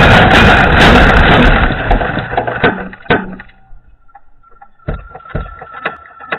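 Range Rover crashing in a rollover: a loud noisy din of crunching metal and scraping that dies away over about two seconds. Then two sharp knocks as the vehicle and debris settle, and later a scatter of faint clicks and knocks, ending abruptly.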